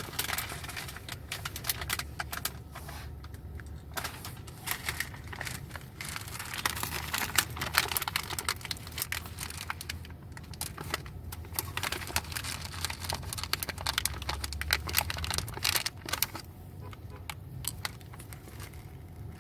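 Dense crinkling crackle, many quick clicks packed close together, over a steady low rumble of a car's cabin.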